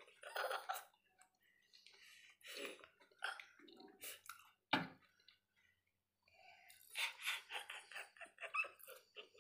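Faint chewing and crunching of a crisp pani puri shell filled with Coca-Cola, with a sharp click about five seconds in and a quick run of crunches near the end.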